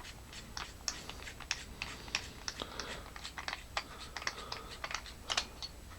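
Irregular small clicks and taps from handling a metal flashlight as its battery compartment door is taken off.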